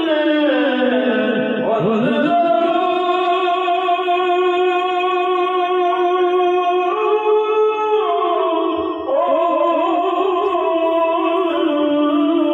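A Hindu priest singing a devotional chant through a microphone and PA, one voice holding long, wavering notes that slide from one pitch to the next, with a change of note about seven seconds in and again about nine seconds in.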